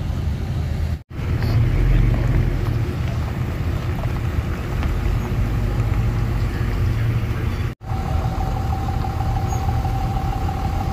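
Pickup truck engines running at low speed, a steady low rumble, broken by two brief gaps; a steady whine joins in the last few seconds.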